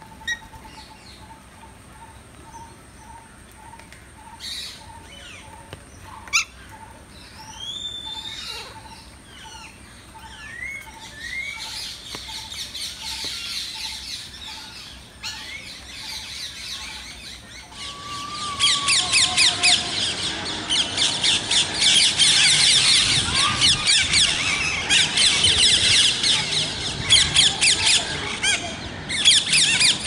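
A flock of rose-ringed parakeets screeching and chattering loudly and continuously, starting suddenly about two thirds of the way in. Before that it is quieter: a steady pulsing tone about twice a second and a few short rising bird calls.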